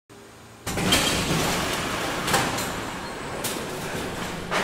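Swing arm on the SLS mobile launcher tower releasing and swinging back: a sudden rush of mechanical noise starting just under a second in, with three sharp clanks along the way.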